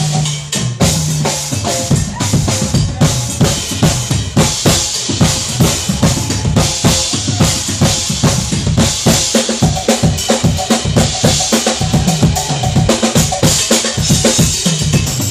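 Drum solo on kit and percussion: a fast, unbroken stream of strokes on bass drum and snare, with rimshots.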